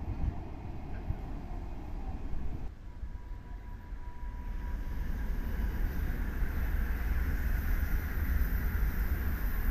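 Freight train running through a station, its wheel-on-rail noise growing steadily louder from about halfway through, over a low rumble that includes wind on the microphone.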